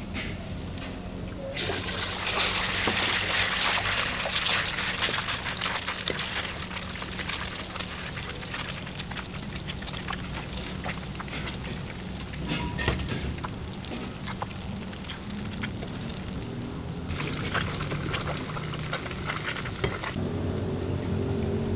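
Char kway teow frying in a hot wok: a loud sizzling hiss starts about a second and a half in as liquid or ingredients hit the wok and dies down after about five seconds. A metal spatula clicks and scrapes against the wok throughout, with another stretch of sizzling near the end over a steady low hum.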